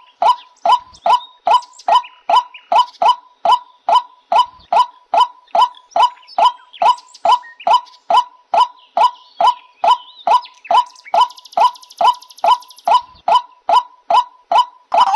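A waterhen calling, one harsh call repeated evenly about two and a half times a second. A brief high buzzing joins in about two-thirds of the way through.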